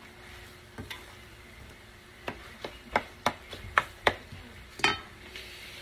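Spatula stirring cooked shrimp mixture in a stainless steel skillet: a run of irregular knocks and scrapes against the pan, bunched in the middle seconds, over a faint steady sizzle.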